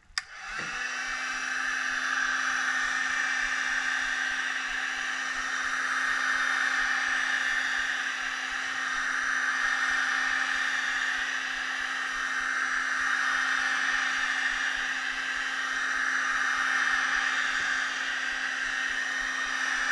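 Hot air gun switched on with a click and running steadily, its fan blowing and humming, as it heats the phone's frame to soften the screen adhesive.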